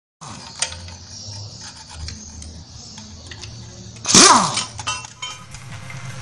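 Metal tools clinking against parts under a car, a few scattered clicks over a low hum. About four seconds in, a brief, loud swish falls in pitch.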